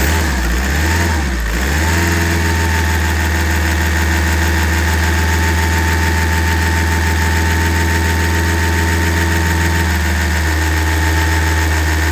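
Volkswagen T5's 2.0 TDI (CAAA) common-rail four-cylinder diesel engine running just after its injectors were bled. Its speed wavers for about the first two seconds, then it holds steady.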